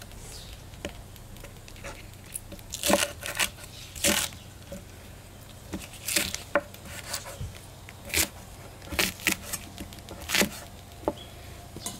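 Kitchen knife cutting a leek on a wooden cutting board: about a dozen separate strokes at uneven intervals, each a short sharp knock of the blade through the stalk onto the board.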